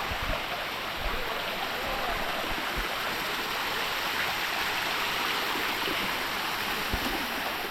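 Waterfall rushing: a dense, steady noise of falling water that does not change.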